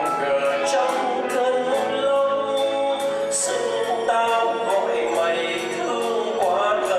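Male singer singing a Vietnamese ballad live with a band, holding long notes over keyboard, guitars and drums. Cymbal ticks keep a steady beat.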